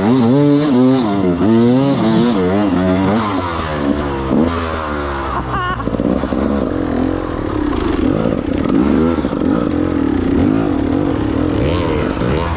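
KTM 250 XC-W two-stroke enduro motorcycle engine revving up and down repeatedly in quick swings, then running at steadier revs with smaller changes from about halfway.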